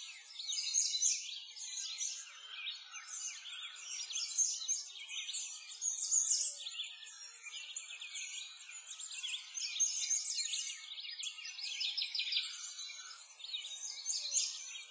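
Many small songbirds chirping and twittering at once in a dense, unbroken chorus of short, high chirps.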